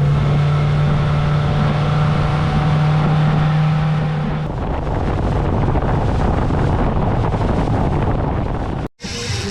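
A boat engine running steadily with a low hum while the boat is underway. About four and a half seconds in the hum fades under an even rush of wind and water, and the sound cuts out abruptly just before the end.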